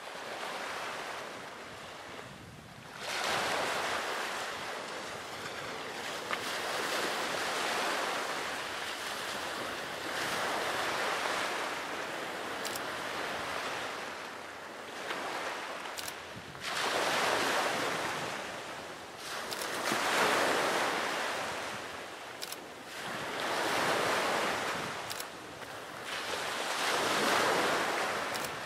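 Sea waves washing onto the shore, each wash swelling and fading every few seconds.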